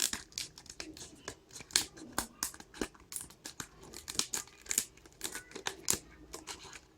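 A mail-order packet being torn open and crumpled by hand, with a dense run of irregular crackles and tearing all through.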